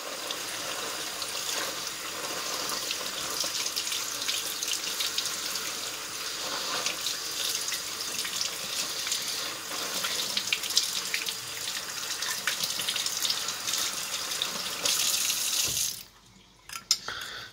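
Kitchen tap running and splashing onto an opened oyster in a sink as shell fragments are rinsed off. The water cuts off suddenly about a second before the end, followed by a few light clicks.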